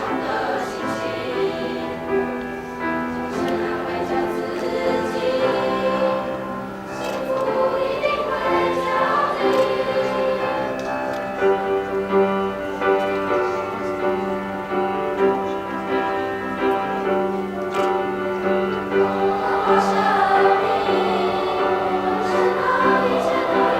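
High-school choir singing a slow song, with long held notes.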